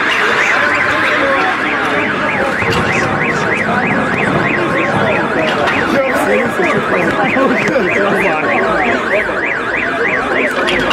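A car alarm warbling rapidly up and down in pitch, about three to four sweeps a second, over a busy background of noise, with one sharp crack about six seconds in.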